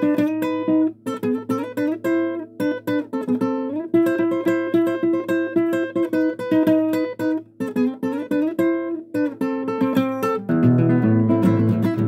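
Classical guitar played solo as an instrumental break: a melody picked note by note, turning to fuller strummed chords near the end.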